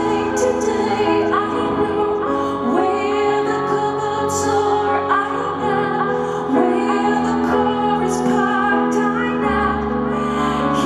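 Live song: a woman singing long held notes, sliding up into a couple of them, over her own keyboard accompaniment.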